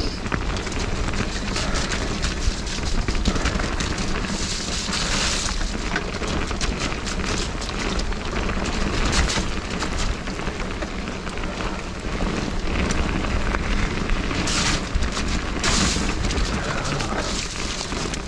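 Mountain bike riding fast down a wet dirt trail, picked up by the rider's GoPro Hero 9: tyres running through mud and standing water as a continuous rushing noise, with several brief louder surges.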